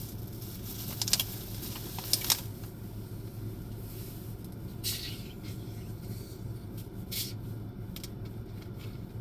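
A few short clicks and brief rustling noises, about one to two seconds in, near five seconds and near seven seconds, over a steady low hum.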